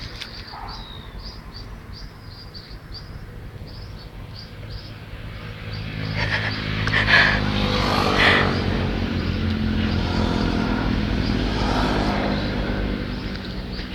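A bird chirps in a quick series of short high notes during the first few seconds. About six seconds in, a motor vehicle engine comes up as a steady low hum and keeps running, louder than everything else, to the end.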